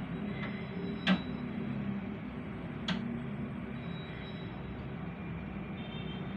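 Train running: a steady low rumble with two sharp clacks, about one second and three seconds in.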